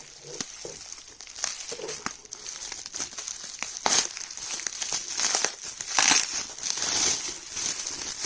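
Crinkling and rustling of makeup packaging being handled and unwrapped by hand, with small clicks and a few louder rustles about four and six seconds in.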